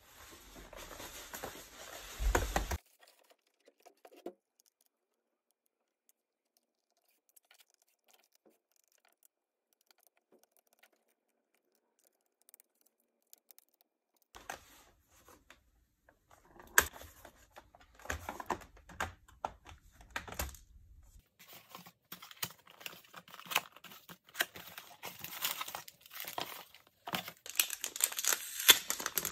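Hands handling a laptop on a table, with scattered clicks, taps and light knocks. From about two-thirds of the way in comes a dense, crackly plastic crinkling as a replacement battery is unwrapped from its plastic bag.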